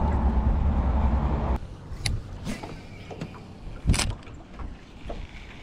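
A steady low rumble that cuts off abruptly about one and a half seconds in. Light clicks and knocks of a baitcasting rod and reel being handled follow, with one louder thump about four seconds in.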